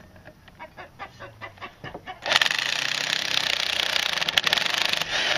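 Electric impact wrench hammering on the 24 mm nut that holds the yoke on a Ford Ranger driveshaft. It starts about two seconds in, rattles loudly for about three seconds and changes just before the end.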